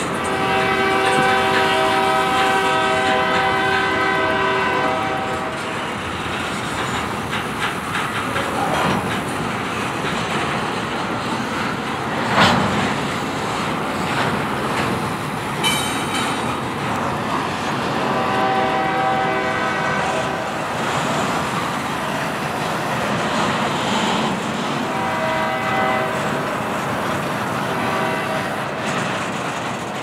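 Double-stack intermodal freight train rolling past with steady wheel clatter on the rail joints. A train air horn sounds one held chord for about five seconds at the start, and twice more later for a few seconds each. A single sharp clank comes about twelve seconds in.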